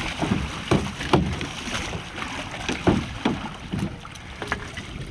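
A salmon being netted beside a drift boat: irregular splashes and knocks as the fish thrashes in the landing net at the water's surface.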